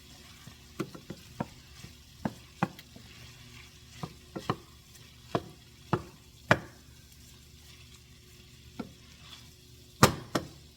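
A cooking utensil stirring shepherd's pie filling in a frying pan, knocking and scraping against the pan at irregular intervals, with a faint sizzle underneath. The loudest knock comes near the end.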